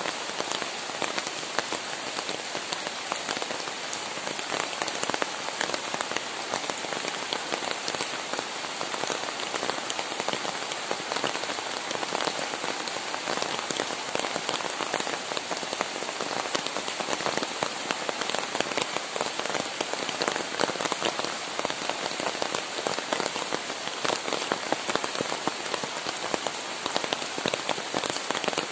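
Steady rain falling on leafy garden shrubs and wet ground: an even hiss made of countless separate drop hits.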